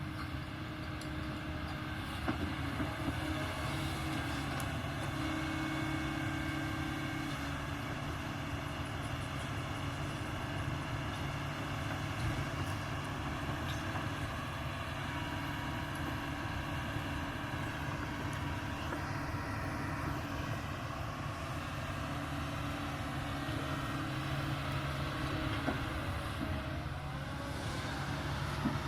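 Kobelco excavator's diesel engine running steadily under working load, its note strengthening and easing every few seconds as the machine digs, with a few short sharp knocks.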